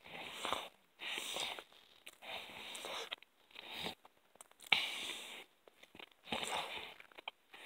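A person chewing a mouthful of hamburger with mouth closed, close to the microphone, breathing hard through the nose in bursts of breath noise about once a second.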